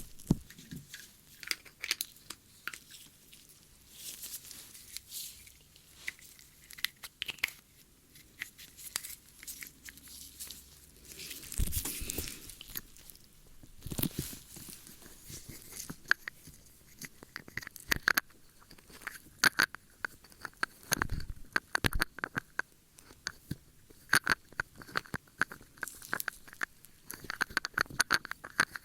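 Close-up ASMR ear-cleaning sounds: irregular crackles, scratches and rustling clicks of something working against the microphone, with short pauses between strokes.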